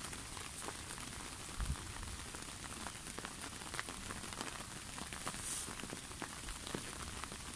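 Steady rain, many separate drops pattering close by on the umbrella canopy overhead and on the lake surface. One soft low thump comes a little under two seconds in.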